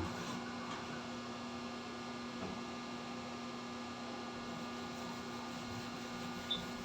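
Steady low electrical hum over faint room noise, with no distinct actions heard.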